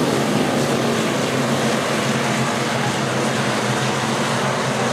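A pack of hobby stock race cars running at speed around a dirt oval, their engines merging into one steady, loud drone.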